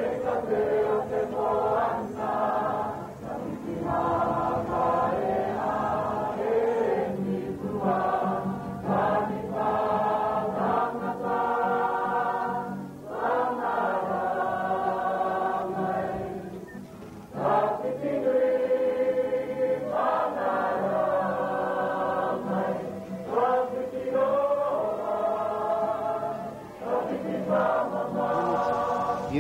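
A group of voices singing together in long held notes, phrase after phrase, with a short pause about two-thirds of the way through.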